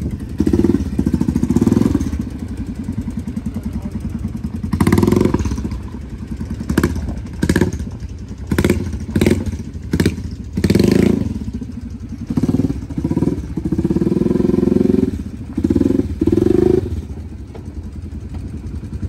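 ATV (quad bike) engines running at idle, revved in repeated short swells, with a few short knocks about halfway through.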